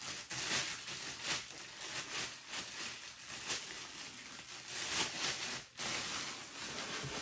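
Clear plastic bag crinkling and rustling irregularly as it is pulled off a telescope's tube.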